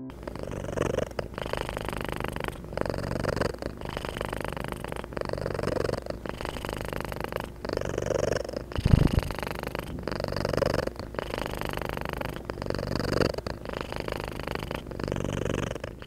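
Ragdoll cat purring close to the microphone, rising and falling with each breath, about one cycle every second and a quarter. A brief low thud about nine seconds in.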